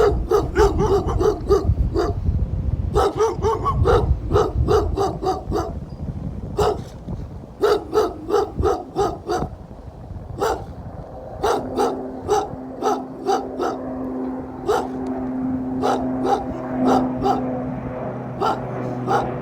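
A dog barking over and over in quick runs of short barks, over a low wind rumble at first. A steady droning hum sets in about twelve seconds in and continues under the barks.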